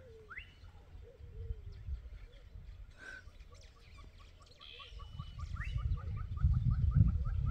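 Wild birds calling: a few low, arched cooing notes and scattered chirps, then from about halfway a rapid run of short chirps, about four a second. Under them, a low rumbling noise builds in the second half and is loudest near the end.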